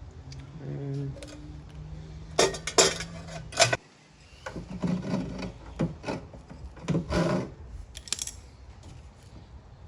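Irregular clicks, knocks and rubbing of lawn mower engine parts being handled and fitted back into place by hand, with a cluster of sharp knocks about two and a half to three and a half seconds in.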